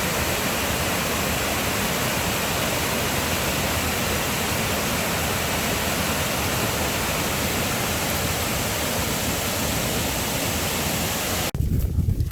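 Waterfall rushing close by, a steady, even noise of falling water with no change in level. It cuts off abruptly near the end.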